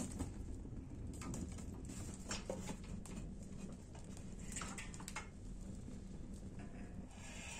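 Wood fire crackling, with scattered sharp pops and a few knocks as sticks and an iron trivet are moved over the flames.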